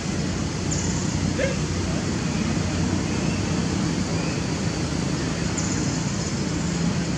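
Steady low rumbling background noise, with a few faint clicks and a couple of brief faint high chirps.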